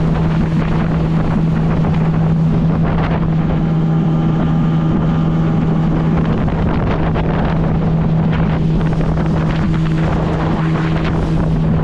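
Mercury outboard motor running at a steady speed with the boat under way, a constant-pitched drone, with wind buffeting the microphone.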